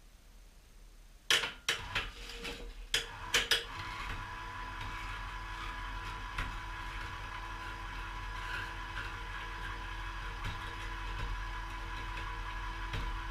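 A few sharp metal clanks, then a ceiling-mounted electric cable hoist runs steadily with an even hum, lifting an engine.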